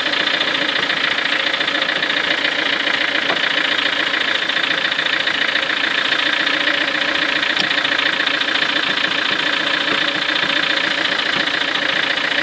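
Ford Focus 3's engine idling steadily.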